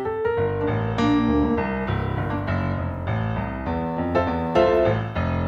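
Background instrumental music led by piano, with a run of melody notes over low sustained bass notes.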